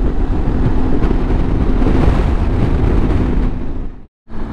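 Triumph Tiger 800 motorcycle on the move, its engine drone under heavy wind buffeting on the helmet microphone. The sound drops out for a moment near the end, then carries on.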